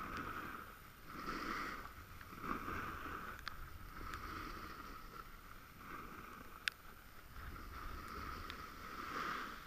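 Snowboard sliding and scraping over packed snow, a rushing hiss that swells and fades with each turn. A single sharp click comes about two-thirds of the way through.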